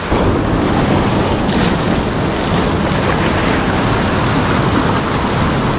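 Sea surf washing in and out among shoreline boulders, a steady rush of foaming water.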